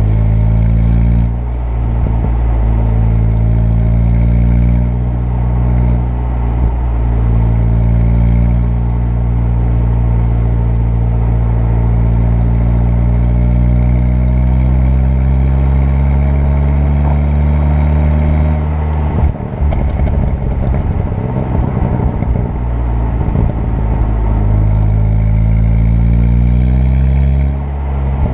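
Turbocharged 2.0 TFSI four-cylinder engine pulling under load, its pitch climbing slowly as the car accelerates. About two-thirds of the way through the throttle lifts and the exhaust pops and crackles on the overrun for a few seconds, with another short burst of crackles near the end.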